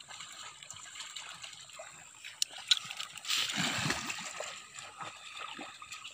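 Water splashing and sloshing as a person wades through a shallow, muddy pond, loudest for about a second some three seconds in. Two sharp clicks come just before the louder splashing.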